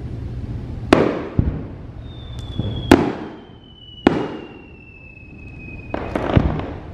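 Fireworks show: aerial shells bursting with sharp bangs every second or two, each trailing off in a rumble. A long thin whistle falls slowly in pitch from about two seconds in until near the end.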